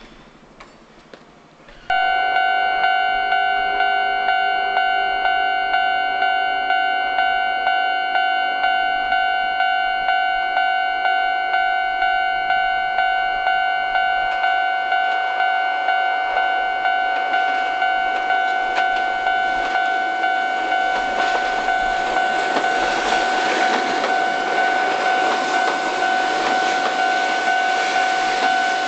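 Railway level-crossing warning bell starting about two seconds in and ringing steadily, just under two strikes a second. A tram's running rumble grows beneath it in the second half.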